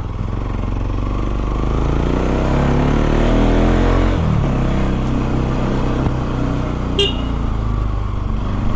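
Bajaj Pulsar NS200's single-cylinder engine through an Akrapovic exhaust with a dB killer fitted, revving up with rising pitch and then dropping off sharply about four seconds in, after which it runs steadier at lower revs. A short high-pitched beep sounds about seven seconds in.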